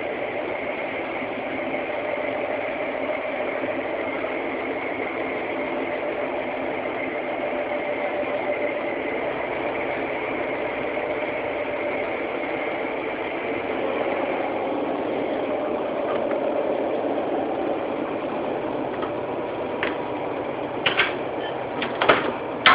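Houseboat's engine running steadily, with a few sharp knocks near the end.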